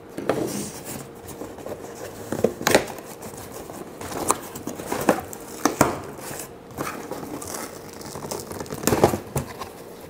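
Toy figure packaging being opened by hand: crinkling and rustling, with irregular sharp crackles.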